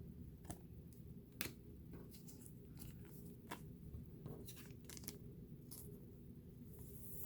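Faint, scattered clicks and rustles of trading cards being handled and flipped through, over a low steady hum.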